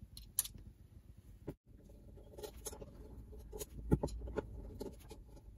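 Faint scratching and small metallic clicks of a screwdriver undoing the four screws on a Stihl TS410 cut-off saw's carburetor, with one sharper knock about four seconds in.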